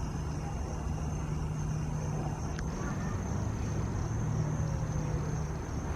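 Steady drone of distant road traffic, with a continuous high insect trill over it.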